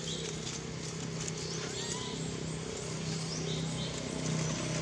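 Baby monkey crying in short, high-pitched squeaks and squeals, some of them rising in pitch, over a steady low hum.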